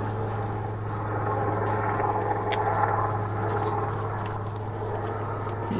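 Steady low mechanical hum, with a few faint clicks of a compression tester hose being threaded by hand into a spark plug hole.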